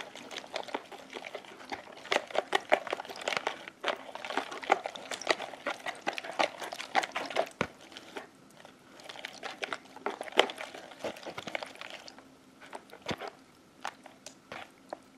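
A hand stirring a runny mix of white glue and borax solution in a plastic bowl: wet squishing and sloshing full of small clicks, thinning to scattered clicks near the end. The glue and borax are not binding into putty and stay separate and watery.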